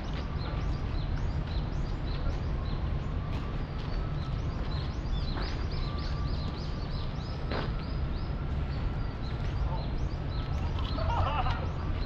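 Outdoor park ambience: a steady low city rumble under a fast, even run of short high-pitched chirps, about three a second, with a brief louder chattering sound near the end.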